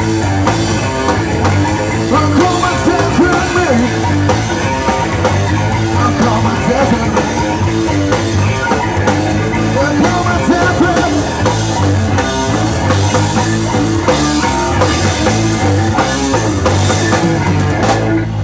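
Live rock band playing loudly through a PA: electric guitars and bass over a drum kit, with a male singer's voice on top. The song stops abruptly at the very end.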